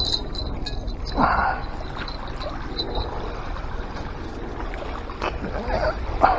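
Small waves lapping and trickling against the rocky lakeshore, a steady wash with two brief louder sounds, one about a second in and one near the end.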